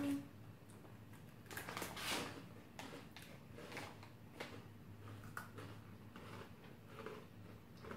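Faint, irregular crackles and rustles of crunchy little breadsticks being chewed and a plastic snack bag being handled.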